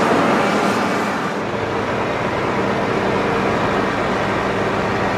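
Heavy snow-clearing machinery running steadily: a large snow blower's engine and the rush of its blower loading snow into a dump truck. A deeper engine hum fills in about a second and a half in.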